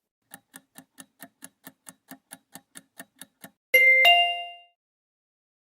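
Quiz countdown-timer sound effect: a clock ticking about four times a second for roughly three seconds, then a loud bell-like ding that rings out in under a second, marking the end of the answer time.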